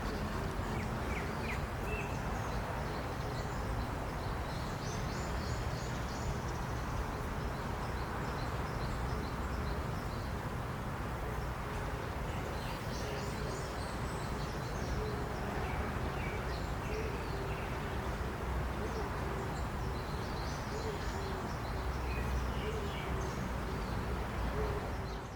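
Outdoor nature ambience: small birds chirping in scattered bursts over a steady low rumble of wind. The sound fades out at the very end.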